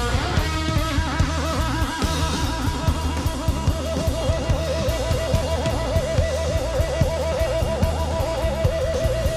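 Rock music: a guitar plays over a steady drum beat and bass, and from about three seconds in holds a long note with a heavy wavering vibrato.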